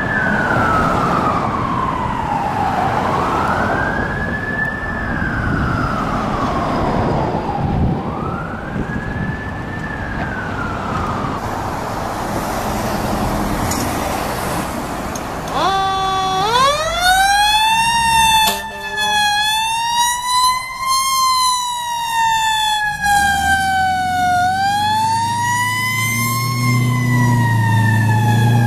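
Fire engine siren sounding a slow wail, rising and falling about every four seconds. About halfway through, a second fire truck's siren, richer in overtones, winds up and then rises and falls slowly. A low drone joins near the end.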